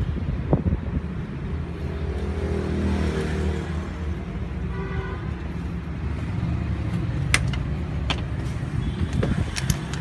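Steady low rumble of motor traffic, with a brief higher-pitched tone about halfway through and a few sharp metal clicks near the end.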